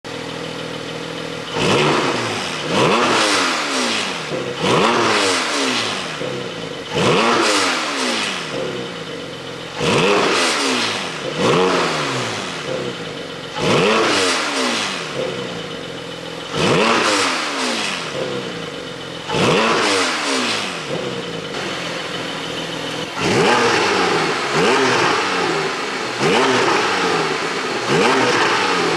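Porsche 718 Cayman GTS 4.0's 4.0-litre flat-six, on an aftermarket ECU tune, idling briefly and then revved in short blips about every two seconds. The revs fall back after each blip, where the tune is meant to bring exhaust pops on the overrun.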